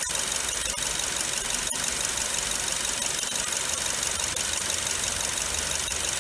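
Nissan Wingroad's engine idling with a steady, loud grinding roar from the alternator, a 'gooo' sound typical of a worn alternator bearing.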